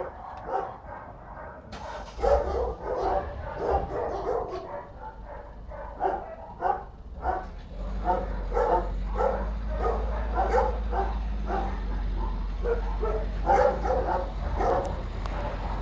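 Dogs barking over and over in short, sharp yaps, several a second at times. A steady low hum comes in about halfway through.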